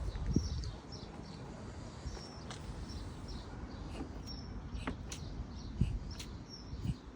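Outdoor background with small birds chirping repeatedly over a low steady rumble, and a few soft knocks scattered through.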